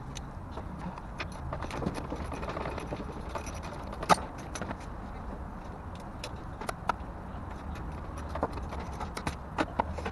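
Irregular light metallic clicks and clinks of hand tools working on the underside of a car, with one sharper knock about four seconds in and a few more near the end, over a steady low hum.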